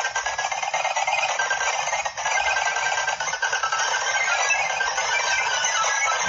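Dense, rapid clicking and rattling, high in pitch, with short faint tones mixed in.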